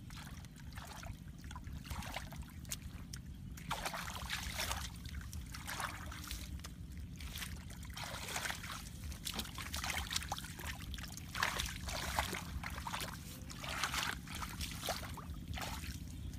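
A hand splashing and sloshing in a shallow muddy puddle, irregular splashes and trickles, over a steady low rumble.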